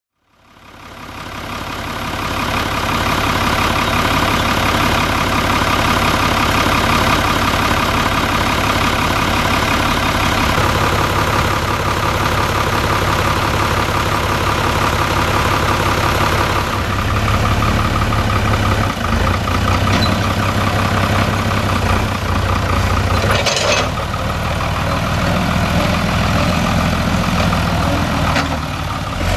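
Fiatagri 110-90 DT tractor's six-cylinder diesel engine running steadily, fading in at the start. About halfway through its sound turns deeper and heavier, and there is a single knock later on.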